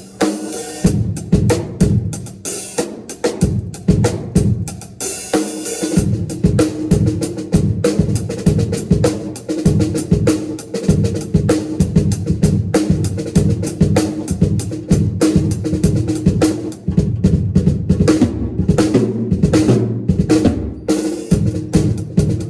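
Drum kit played continuously in a busy pattern of rapid snare and bass drum strokes with rolls and fills, while the kit is being sound-checked.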